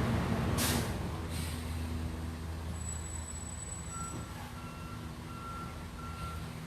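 A truck's engine running, with its reversing beeper sounding in a steady on-off pattern from about four seconds in; a brief rustle under a second in.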